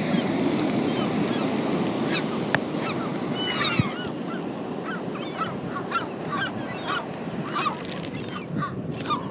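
A flock of seagulls calling in many short overlapping squawks around food being thrown, over a steady low rushing background.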